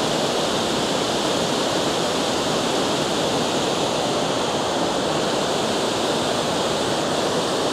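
Water pouring over a dam spillway: a steady, even rush with no let-up.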